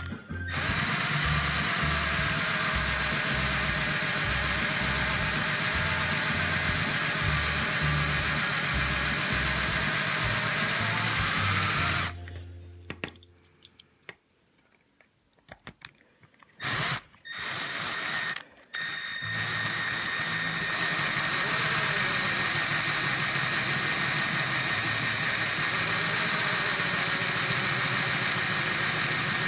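Small power drill running steadily as it drills out the rivets of a die-cast toy truck, over background music with a beat. The drill stops for several seconds about halfway, with a few short blips, then runs on.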